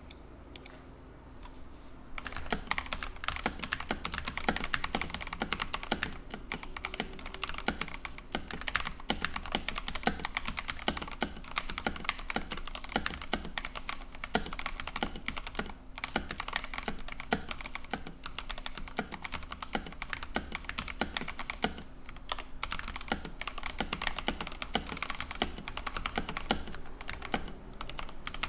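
Fast continuous typing on an iQunix ZX75 75% mechanical keyboard: a dense run of key clacks that starts about two seconds in and keeps going.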